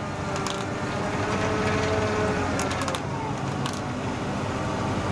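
Sany rotary bore-pile drilling rig running, its engine and hydraulic drive giving a steady whine while the telescopic kelly bar is hoisted out of the bore. A few metallic clicks come a little past halfway.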